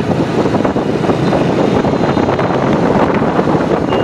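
Wind rushing steadily over the microphone on a moving TVS motorcycle, with the bike's engine and road noise underneath.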